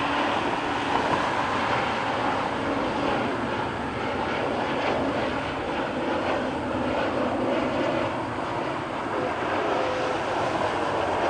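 Steady jet airliner engine noise, an even, continuous sound that neither builds nor fades.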